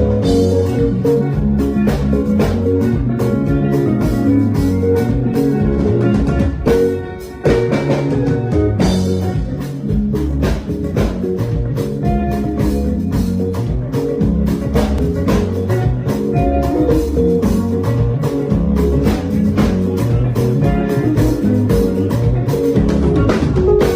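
Live band playing an instrumental passage, guitar over drum kit with steady low bass notes. The music drops briefly about seven seconds in and then carries on.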